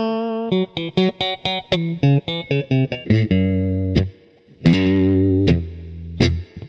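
Fender Stratocaster electric guitar on its middle-and-bridge pickup setting, played through a slightly dirty, lightly overdriven amp. It opens with a ringing chord, then a quick run of short picked notes, then several held notes and chords that ring and are cut short.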